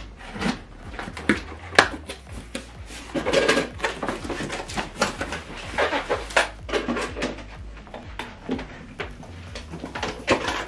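Large cardboard box being opened by hand, with the tape slit and the top flaps pulled back. An uneven run of cardboard scrapes, rustles and knocks, loudest a little past three seconds in.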